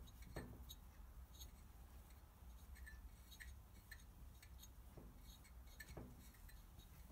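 Faint, scattered light clicks and taps of small metal parts being handled on a bare engine, over a low steady hum.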